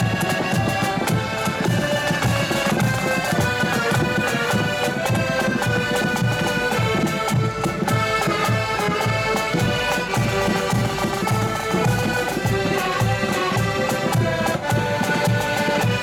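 Marching accordion band playing a tune: massed piano accordions playing chords and melody together over a steady bass drum beat.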